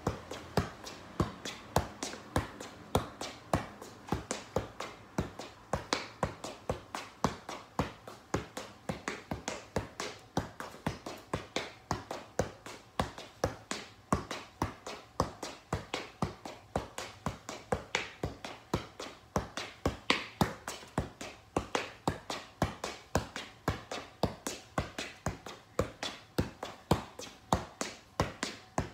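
Soccer ball being juggled: an unbroken run of light taps as the ball bounces off the feet and thighs, about two to three touches a second, heard inside a garage.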